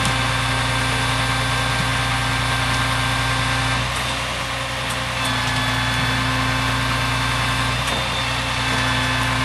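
Truck engine running steadily under load with a steady whine, powering a 90-inch truck-mounted hydraulic tree spade as it digs. The sound dips briefly about four seconds in and again near eight seconds, as the load eases.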